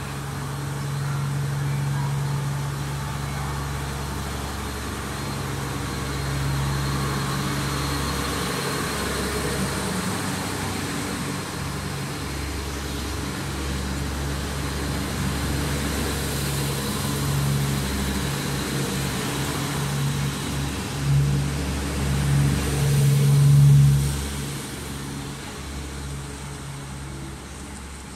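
HC85 series hybrid diesel railcar pulling out and passing close by. Its engines run with a steady low hum, loudest a little after twenty seconds in, then fading as the train moves away.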